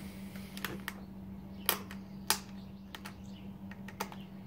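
A handful of short, sharp clicks and taps, the two loudest near the middle, over a steady low hum.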